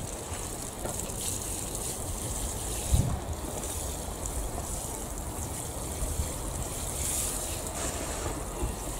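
Water spraying from a plastic watering can's rose onto the soil of a raised bed, a steady hiss, with wind rumbling on the microphone. There is a single low thump about three seconds in.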